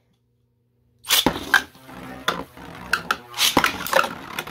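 3D-printed beyblade spinning tops whirling in a plastic stadium. They start about a second in and keep up a constant rattle, with repeated sharp clacks as they hit each other and the stadium walls.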